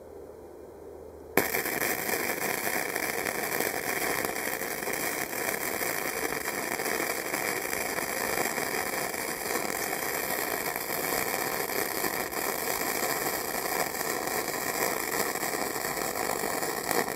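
Flux-core arc welding with a Harbor Freight Easy-Flux 125 inverter welder and 0.030 flux-core wire: the arc strikes about a second and a half in and then crackles steadily as one continuous bead is run around a stainless V-band flange on mild steel pipe.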